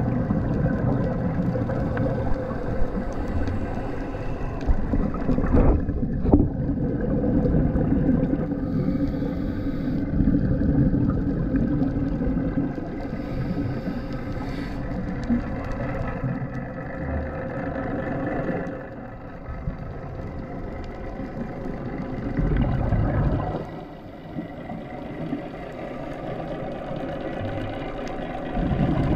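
Boat motor heard underwater: a steady low rumble with a faint hum carried through the water, dropping quieter in the last third.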